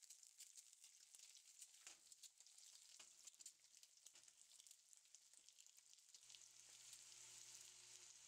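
Halved boiled eggs frying cut side down in hot oil in a non-stick pan: a faint sizzle with fine crackling, growing a little stronger near the end.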